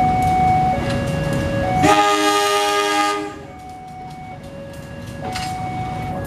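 Level-crossing alarm sounding its two alternating tones over the rumble of a passing train. About two seconds in, a train horn blows for just over a second, the loudest sound; after it the rumble falls away while the alarm keeps alternating.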